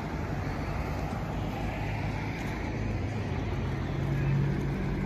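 Road traffic on a street: a car engine's low hum over general traffic noise, growing louder about four seconds in.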